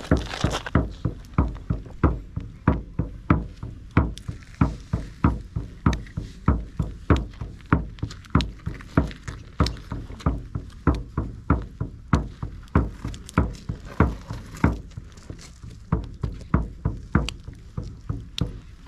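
A drum beaten in a steady rhythm, about three to four strokes a second, a little softer in the last few seconds.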